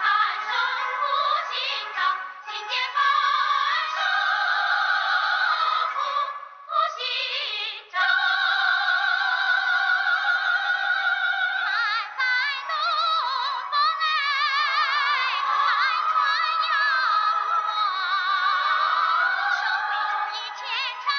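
Film soundtrack song: high singing with strong vibrato in an opera-like style, over orchestral accompaniment, with a brief dip in the music about seven seconds in.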